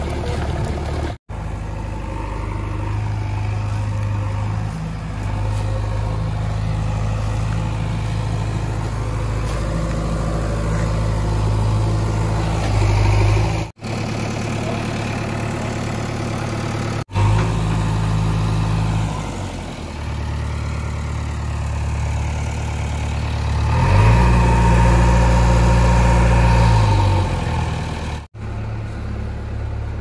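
JCB backhoe loader's diesel engine running steadily, revving up louder for a few seconds near the end. The sound cuts out abruptly for an instant four times.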